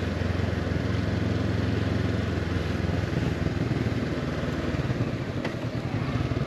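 Honda CB500X motorcycle's parallel-twin engine running steadily while riding along, with road and wind noise.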